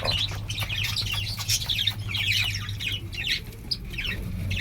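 A flock of small pet birds chirping and chattering together, a dense, unbroken stream of short high calls.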